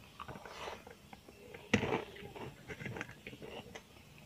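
Eating sounds: chewing with small wet mouth clicks, and one sharp knock or crunch a little under two seconds in.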